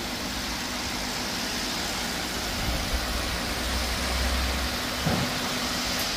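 Large metal pedestal fan running steadily, its blades pushing a constant rush of air with a low, even hum. A deeper rumble swells for about two seconds near the middle.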